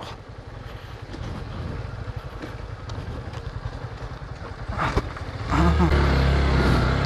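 Motorcycle engine running at low speed with a rapid low pulsing. It becomes louder and steadier about five and a half seconds in.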